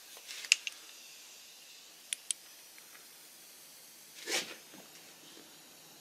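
Mostly quiet, with a few small sharp clicks of handling noise, two of them close together about two seconds in, and a short hiss a little after four seconds.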